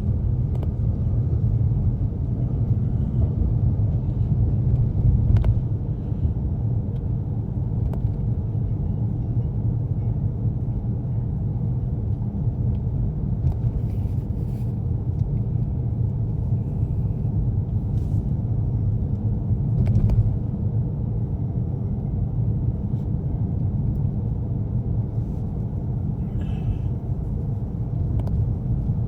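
A car driving, heard from inside the cabin: a steady low rumble of engine and road noise, with a few faint clicks and rattles now and then.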